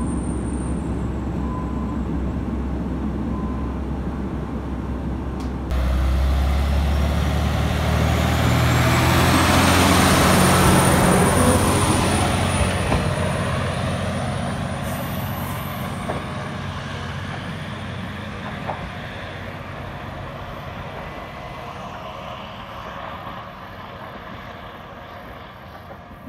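Matsuura Railway MR-600 series diesel railcar. It idles at the platform, then pulls away, its engine working hard under a whine that rises and then holds steady. It is loudest about ten seconds in and fades slowly as the train draws away down the line.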